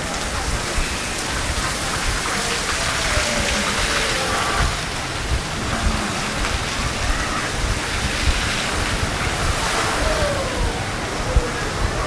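Steady hiss of falling water, spreading evenly across the whole range with no pauses.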